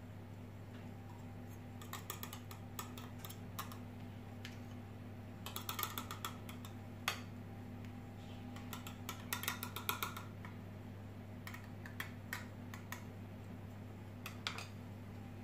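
Faint irregular clicks and scrapes of a teaspoon against a small plastic cup and a ceramic bowl as a soft avocado mixture is scooped and spooned into the cup, coming in short clusters over a steady low hum.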